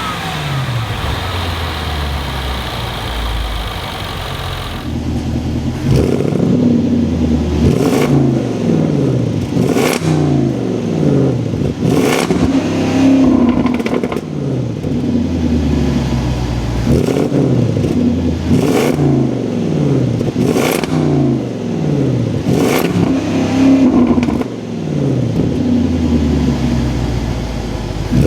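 The Land Rover Defender 110's supercharged 5.0-litre V8 running steadily, then revving up again and again, its pitch climbing and breaking off about every two seconds.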